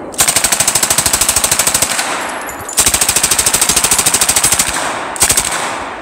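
Lage MAX-41A replica pulse rifle firing full-auto: a long rapid burst, a second long burst after a short pause, and a short burst near the end, with the shots ringing out behind each burst.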